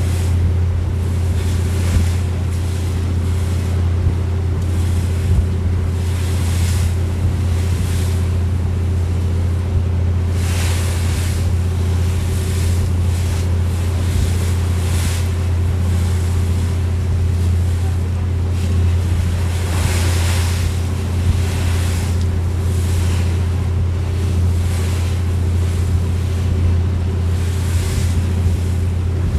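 Steady low drone of a large Amazon passenger riverboat's engine running under way, with water rushing along the hull and wind buffeting the microphone in several gusts.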